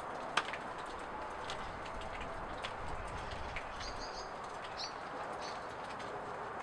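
Short high bird chirps, a quick run of them about four seconds in and another near five seconds, over a steady outdoor hiss. A sharp tap about half a second in and a few faint clicks come from handling the knife and leather sheath on the wooden bench.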